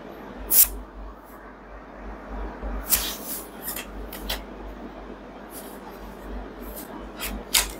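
Plastic-covered tarot cards being handled: several short sharp taps and rustles as cards are pulled from the deck and set down on the table.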